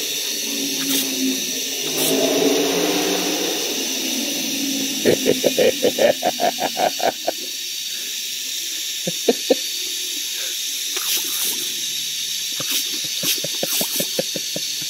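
Garden hose pistol-grip spray nozzle hissing steadily as it sprays a jet of water. Several runs of quick wet smacks, about five a second, come as a boxer dog snaps at the jet; the longest run starts about five seconds in.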